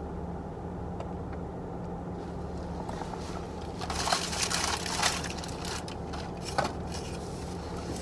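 Paper food wrapping crinkling and being crushed for about a second, about four seconds in, with a short crackle later, over a steady low hum in the car's cabin.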